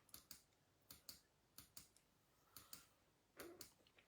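Faint computer clicking: short, sharp clicks, mostly in quick pairs, about one pair a second.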